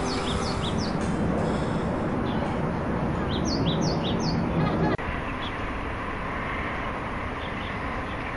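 A small bird chirping in quick groups of three short, downward-sliding notes, twice, over a steady rushing background noise that drops abruptly about five seconds in.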